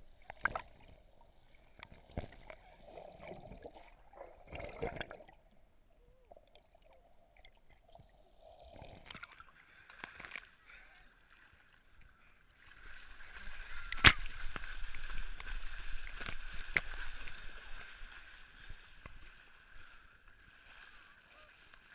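Water sloshing and splashing against a waterproof action-camera housing as it dips under the surface and back out, muffled while submerged, with scattered knocks. A louder stretch of splashing rushes over the camera in the second half, with a sharp knock in the middle of it.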